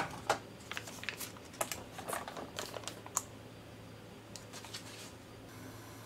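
Aluminium foil retort pouches of instant curry being handled: a sharp tap at the start, then quick crinkles and clicks of the stiff foil for about three seconds, fading to a few faint ticks.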